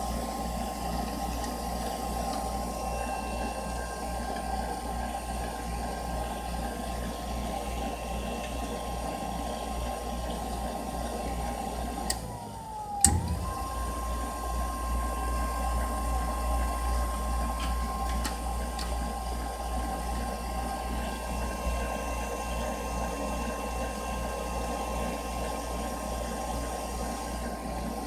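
Furnace running with a steady whir, a constant whine and a pulsing low hum. About twelve seconds in the sound briefly drops away and the whine sags in pitch, then a sharp click and it runs on steadily again.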